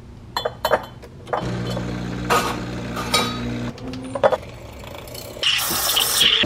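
A few clinks of a spoon against a glass jar, then a steady electric hum for about two seconds. Near the end comes the loud hiss of an espresso machine's steam wand starting up to steam milk in a steel jug.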